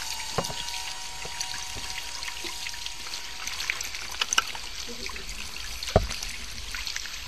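Water running from a tap and splashing over hands being washed and rubbed in a sink, with small splashes throughout and one louder thump about six seconds in.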